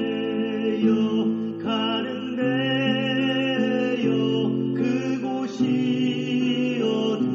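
Background music: acoustic guitar with a slow melody of long held notes, the chords changing every second or two.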